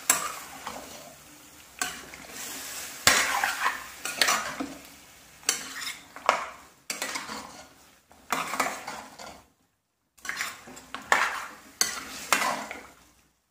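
A steel spoon scraping and turning marinated chicken pieces in a non-stick kadai, stir-fried over a high gas flame, with the pan sizzling underneath. The strokes come irregularly, with a few sharp clacks of spoon on pan, and the sound cuts out briefly about ten seconds in.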